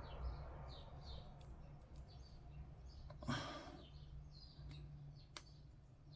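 Faint, repeated bird chirps in the background over a low steady hum, with a brief rustle of handling about three seconds in and a single sharp click of plastic parts a little after five seconds.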